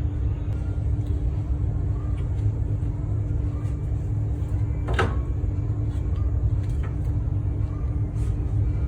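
Honda Step WGN minivan on the move: a steady low rumble of road and drivetrain noise with an even hum, and one sharp click about five seconds in.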